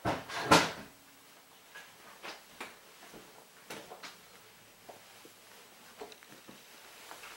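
Hard objects being handled: one loud sharp knock about half a second in, then scattered lighter clicks and knocks.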